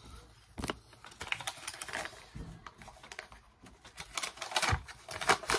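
Paper banknotes being flicked and counted by hand: an irregular run of crisp snaps and rustles, busiest near the end.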